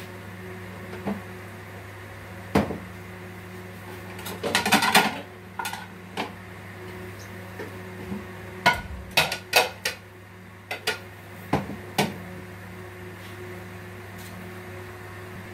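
Kitchen utensils knocking and clinking against a pot and plate in scattered single strikes, with a denser clatter about four to five seconds in and several more knocks later, over a steady low hum.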